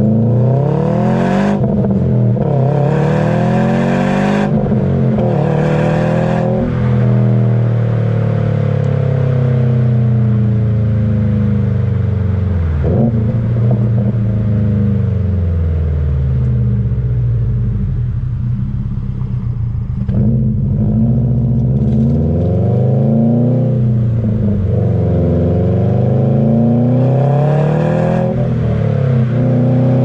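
2020 Subaru STI's turbocharged 2.5-litre flat-four through a Remark axle-back exhaust, heard right at the tailpipes. It accelerates through the gears in the first several seconds, revs climbing and dropping at each shift, then the revs fall away and climb again several times as the car slows and pulls away.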